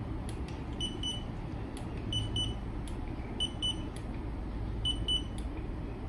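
Handheld infrared thermometer beeping as it takes readings of the pizza oven stone: short high beeps in pairs, about four pairs a little over a second apart. Under them runs the steady low rush of the oven's gas burner flame on high.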